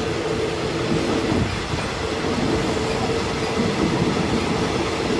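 Train running on the track: a steady rumble of wheels and carriage with a humming tone held throughout.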